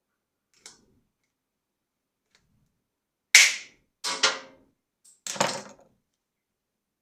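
Three sharp knocks about a second apart, each ringing briefly, the first the loudest, after a faint click.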